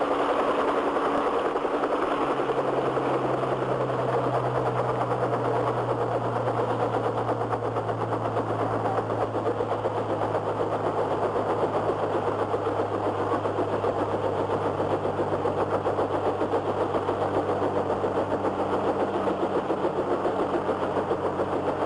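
Kaman HTK-1K intermeshing-rotor helicopter's engine and rotors running steadily as it hovers low and settles to land, with a low hum coming in about two seconds in.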